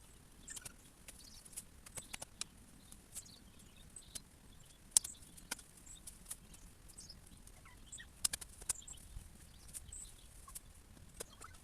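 Irregular sharp clicks and light rustles of digging and pulling up dropwort plants by hand, the loudest click about five seconds in and a quick cluster a little after eight seconds. Faint short high bird chirps come and go.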